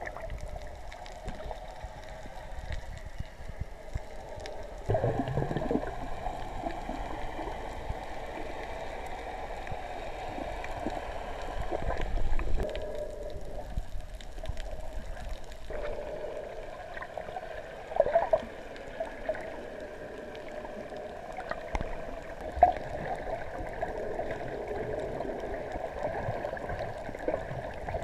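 Muffled underwater sound picked up by a camera held underwater: steady water sloshing and gurgling, with a few sharp knocks.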